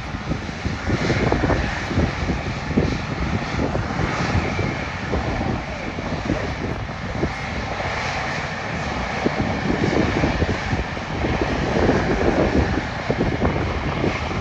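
An airliner's engines running loud and steady, with a rough, crackling texture in the low end.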